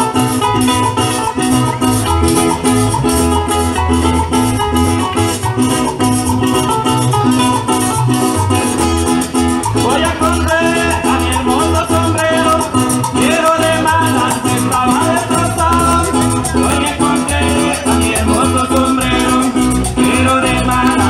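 Live Colombian merengue campesino played by a string band: strummed acoustic guitars and bass over a shaker keeping a fast, steady beat. A voice comes in singing about halfway through.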